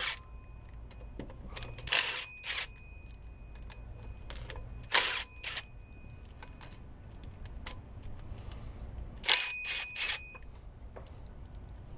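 Sharp metallic clicks and clinks of sockets and a ratchet being handled and fitted together, in small groups of two or three a few seconds apart.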